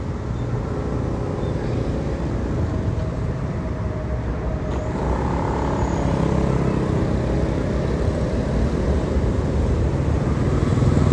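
Road traffic: the engines of motor vehicles running steadily, getting a little louder over the second half.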